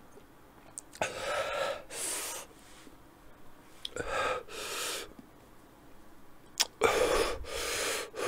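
A man breathing hard through an open mouth against the burn of a very hot sauce: sharp, hissing breaths in pairs, three rounds about three seconds apart.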